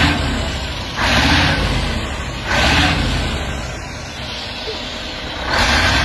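Iveco Turbostar truck's V8 diesel engine with open exhaust pipes, revved in short bursts four times and running low between them.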